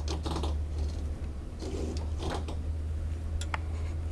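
Several short sliding, scraping sounds and a few light clicks over a steady low hum, as of printed printer parts being handled.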